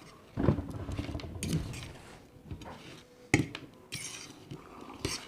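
Dishes and utensils clinking and knocking at a meal: a few scattered, fairly quiet clinks, the sharpest a little past the middle.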